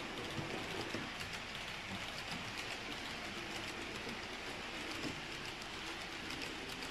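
H0-scale model trains running over the layout's track: a steady rolling rumble and hiss of wheels on rail, with many light clicks.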